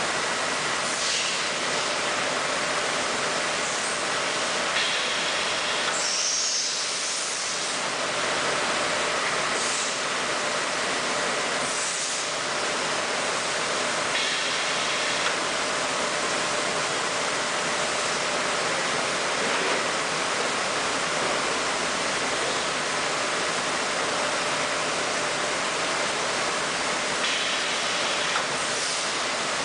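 Steady hiss of machine-shop background noise with a faint continuous hum, even in level throughout.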